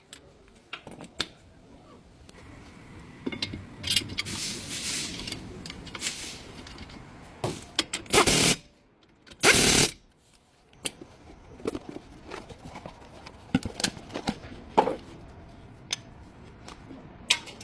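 Workshop tool noise from a front brake job: scattered metal clicks and clanks, a hiss a few seconds in, and two short loud bursts of a power tool around the middle.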